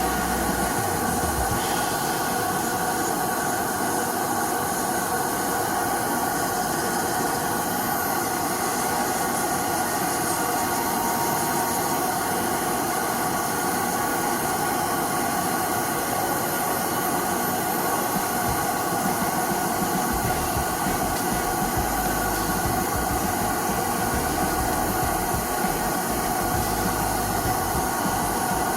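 Electric nail drill running steadily with a constant hum and hiss while a thickened, discoloured toenail is ground down.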